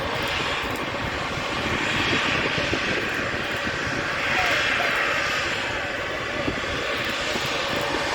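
Airliner engines running, a continuous rushing noise that swells about two seconds in and again around four and a half seconds.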